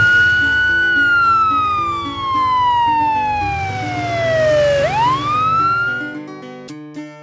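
Police siren wailing: the pitch holds high, falls slowly over about four seconds, then sweeps quickly back up and cuts off about six seconds in. Light background music plays underneath.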